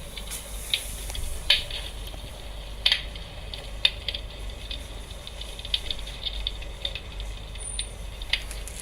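Built-in wood-crackling sound effect of a RealFlame 3D Novara 26 electric fireplace hearth: irregular pops and crackles of burning logs over a steady hiss, with sharper snaps about a second and a half in and near four seconds in. A faint low hum runs underneath.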